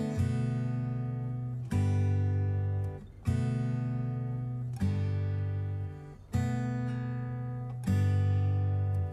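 Background music: acoustic guitar chords strummed about every second and a half, each left to ring and fade.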